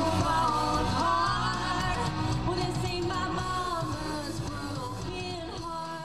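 Live country band: a woman singing lead into a microphone over electric guitar, bass and drums. The music gradually gets quieter.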